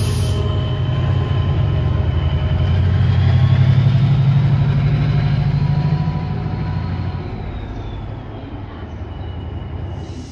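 Class 68 diesel-electric locomotive's V16 diesel engine running as the train passes and draws away, its deep drone fading over several seconds. A faint high whine rises and falls midway.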